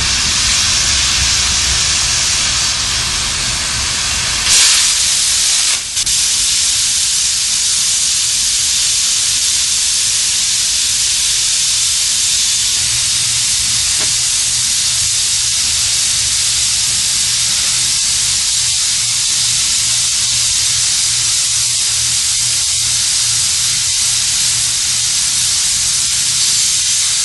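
Oxy-fuel cutting torch hissing steadily as it cuts across the web of a steel beam, carried by a Bug-O Beam Bug III; the hiss briefly grows louder about four and a half seconds in.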